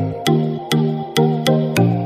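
Electronic background music with a steady beat of about two beats a second, and a low note that changes on each beat.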